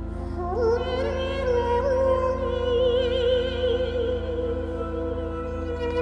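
A man singing a high, sustained note with a wavering vibrato over a steady droning backing track. The voice slides up into the note about half a second in, and its bright overtones waver high above it.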